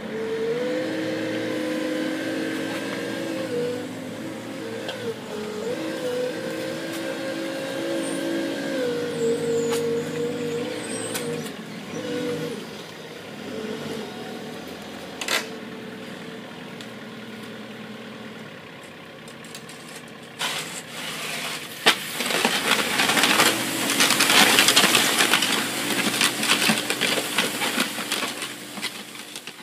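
A Schäffer 2445 Nordic HD four-wheel-drive loader's engine running under load, its pitch stepping up and down as it works. It quietens about halfway through. From about two-thirds of the way in, a loud rushing hiss takes over and drowns out the engine.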